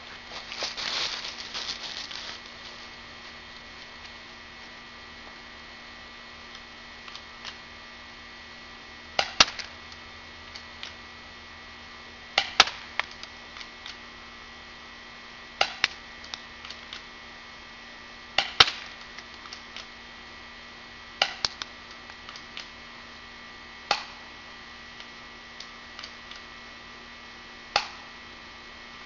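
UHC 1911 spring-powered airsoft pistol fired in slow succession: seven sharp snaps about three seconds apart starting about nine seconds in, each followed by a few fainter clicks, over a steady electrical hum.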